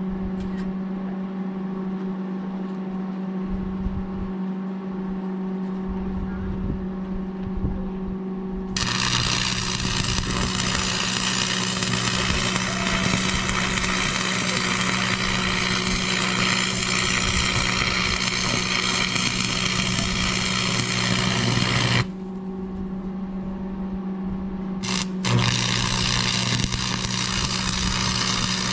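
Plasma cutter cutting steel plate: a loud steady hiss that starts abruptly about nine seconds in, cuts off sharply a little past twenty seconds, and starts again after a click about three seconds later, over a steady low machine hum.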